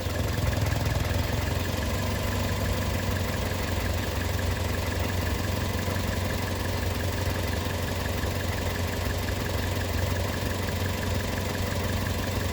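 Car engine idling steadily, running without the vacuum leak that a pulsed purge valve had been letting in. The level swells slightly at the very start, then holds even.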